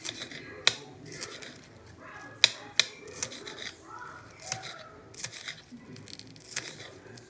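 Small kitchen knife slicing through scallion (green onion) stalks, a crisp snick at each cut, coming unevenly about one or two a second, with the two loudest cuts close together a little before the middle.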